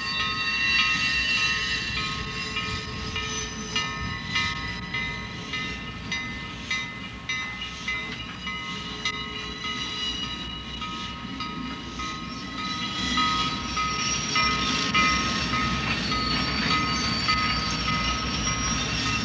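Train cars, including steam locomotive 5700's tender and a baggage car, rolling slowly past. The steam engine is being pushed by another locomotive and is not under its own power. There is a steady low rumble with high-pitched squealing tones and irregular clicks from the wheels on the rails.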